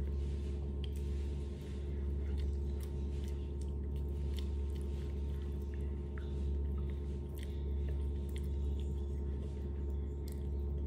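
A steady low hum, with scattered soft crackles and clicks of a fish's dry skin and bones being pulled apart by hand, along with some chewing.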